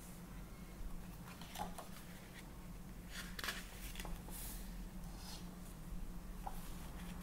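Pages of a paperback colouring book being turned and pressed flat by hand: a few brief papery rustles and swishes, over a steady low hum.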